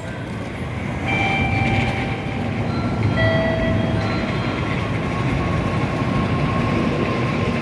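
N700A Shinkansen high-speed train arriving at a platform. A steady rushing noise grows louder about a second in, with several short whine tones at shifting pitches over it.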